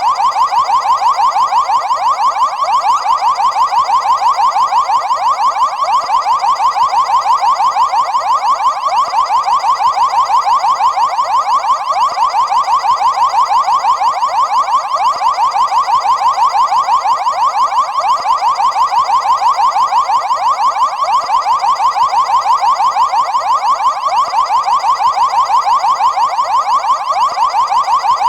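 Car alarm sounding: a loud, fast-pulsing tone that repeats evenly without changing pattern.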